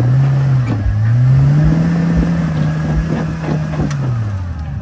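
Off-road vehicle engine revving under load: the pitch rises, dips briefly about a second in, is held high for a couple of seconds, then drops off near the end. Scattered knocks and clatter sound over it.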